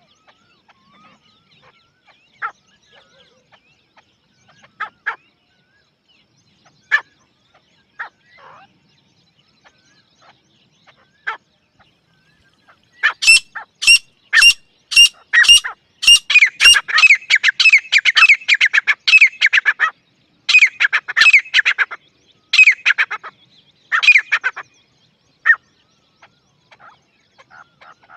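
Grey francolin calling. Single short notes come now and then at first; about halfway through a loud run of calls begins, opening with a few sharp notes about two a second and going into rapidly repeated phrases, which stop a few seconds before the end.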